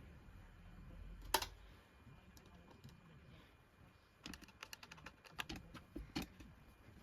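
Screwdriver clicking and tapping against small metal screws as the hard drive's mounting screws are undone: a single click about a second in, then a quick run of light clicks and taps from about four to six seconds in.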